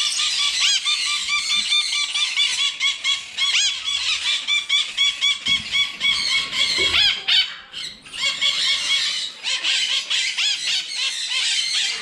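A flock of caged sun conures, red factor birds among them, screeching: shrill calls repeated about four a second, with a brief lull about seven to eight seconds in.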